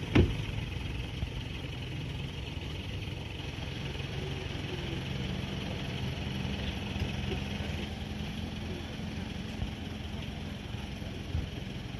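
A vehicle engine idling steadily with a low hum, and one sharp knock just after the start.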